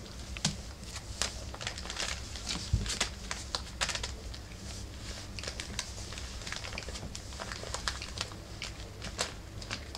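Newspaper crinkling and rustling under the paws of four-week-old rough collie puppies as they scramble about and play on it, in quick, irregular crackles.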